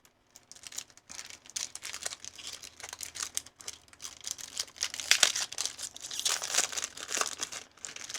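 Foil wrapper of a Pokémon trading-card booster pack crinkling as it is handled and torn open, loudest from about five seconds in to near the end.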